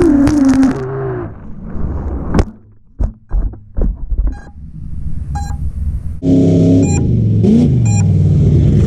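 Mega mud truck engine revving loudly, then a sharp knock and a few short thumps as the chasing FPV quad is hit by mud and tumbles. About six seconds in the truck engine returns loud, its pitch falling, while short high beeps repeat about once a second.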